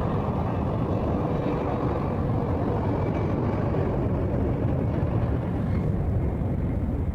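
Turbofan engines of an Embraer regional jet at takeoff thrust: a loud, steady low rumble, its higher tones thinning out toward the end as the aircraft moves away.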